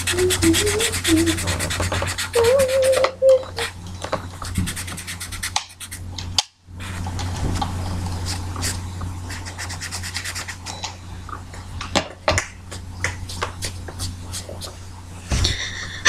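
Felt-tip permanent marker scrubbed rapidly back and forth on notebook paper to fill in a colored area: a fast, dense scratchy rubbing that stops briefly about six seconds in.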